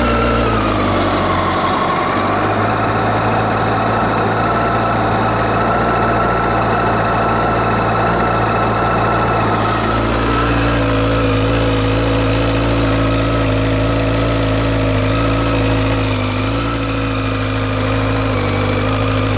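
Honda CBR1000RA Fireblade's inline-four engine idling steadily just after its first start, its note changing partway through.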